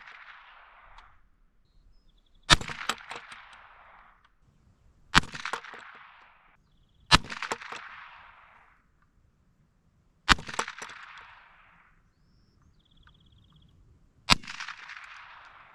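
.22 rimfire gun fired five times at a Brinks padlock, single shots a few seconds apart, each sharp crack trailing off in a brief echo.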